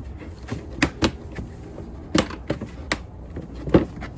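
Hard plastic parts of a spin mop bucket clicking and knocking as they are fitted back together, about six sharp clacks at uneven intervals, the loudest near the end.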